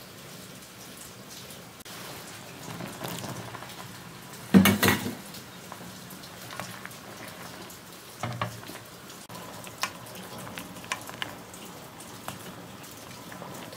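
Tteokguk broth bubbling in a stainless steel pot, with a wooden spoon stirring the rice cakes and vegetables and knocking against the pot. A loud clatter comes about four and a half seconds in, a smaller one near eight seconds, then a few light taps.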